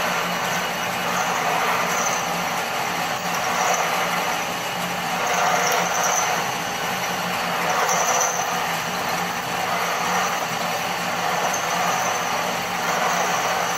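Homemade lathe running under power while a drill bit in its improvised tailstock bores into a rod turning in the chuck. It gives a steady machine noise with a low hum, and a high whine swells and fades every couple of seconds.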